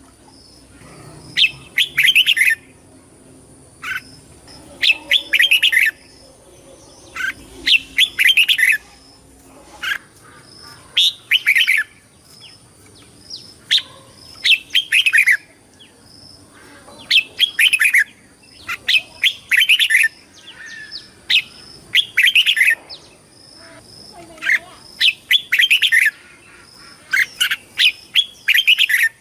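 Red-whiskered bulbul singing: short phrases of bright, quick warbled whistles, repeated every one to three seconds with short pauses between.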